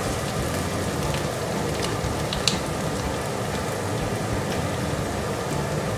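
Onion rings frying in olive oil in a nonstick frying pan, a steady crackling sizzle, with one sharp tick about two and a half seconds in.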